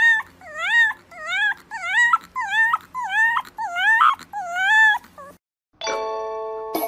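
Fluffy white puppy giving a rapid string of high, whining yips, about one every two-thirds of a second, each dipping and then rising in pitch. The yips stop about five seconds in, and after a short pause a chime of steady ringing tones begins.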